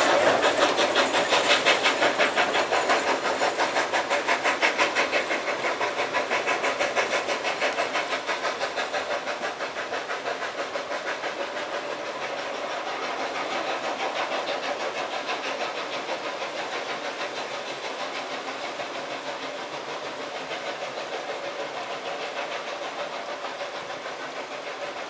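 Steam train pulling away, its steady rhythmic beat of several strokes a second fading gradually as it recedes.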